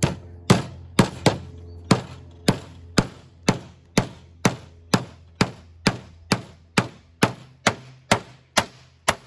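Stanley 16 oz fiberglass-handled claw hammer driving a 4-inch screw into 2x4 lumber. About twenty sharp blows come at roughly two a second, each with a brief ring, and stop a little after nine seconds.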